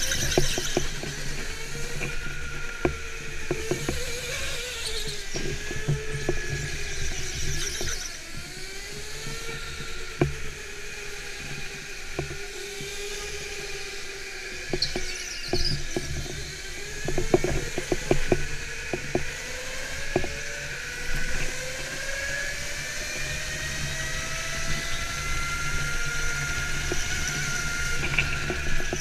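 Go-kart motor whining, its pitch rising and falling as the kart speeds up and slows through the corners, over a steady low rumble with scattered knocks and some tyre squeal.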